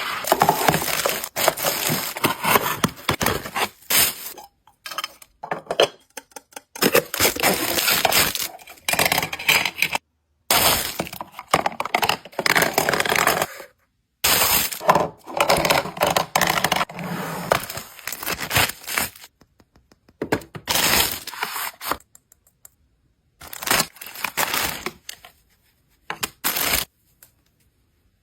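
Paper blind bags being handled, crinkled and torn open: loud bursts of crackling and rustling paper broken by several short silent gaps.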